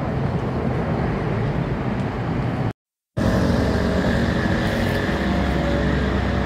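Steady low rumble of wind and handling noise on a body-worn camera carried while running. It is broken just under three seconds in by about half a second of dead silence at an edit cut, and then resumes.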